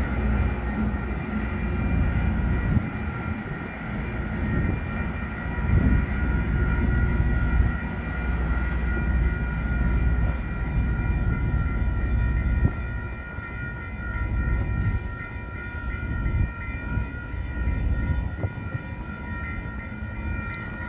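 US Army 3GS21B genset switcher locomotives, powered by three diesel generator sets, rumble past a grade crossing; the rumble weakens in the second half as they move away. Several steady high tones, most likely the crossing's warning bell, sound the whole time.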